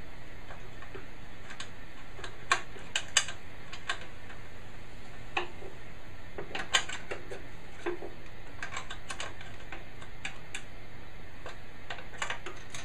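Irregular sharp clicks and taps of hand tools and metal parts being handled, with a few louder clicks about two and a half to three seconds in, over a steady low hum.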